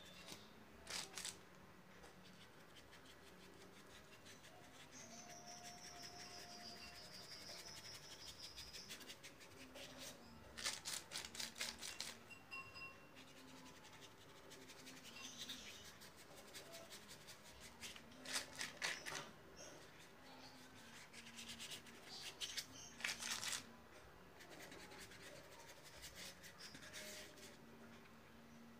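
Paintbrush bristles scratching and dabbing paint onto a board in short, faint bursts of quick strokes, coming several times.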